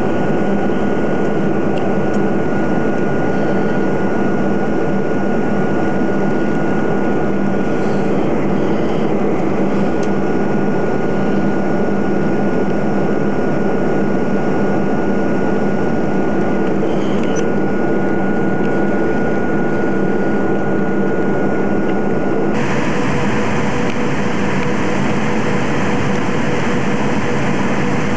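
Steady engine and airflow noise inside the cabin of a jet airliner in cruise, with a thin steady whine over the noise. About three-quarters of the way through, the sound changes abruptly at a recording cut: the whine drops away and a lower steady tone takes its place.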